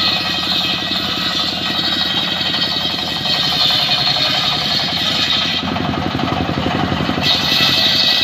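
Engine-driven circular sawmill ripping a mahogany log. The engine runs with a steady rapid pulse under the high noise of the big blade cutting, which breaks off for about a second and a half near six seconds in, then comes back.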